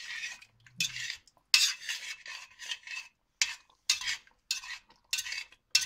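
Stirring meat in a thickening sauce in a stainless steel saucepan: a utensil scrapes and clinks against the pot in short, quick strokes, about two a second.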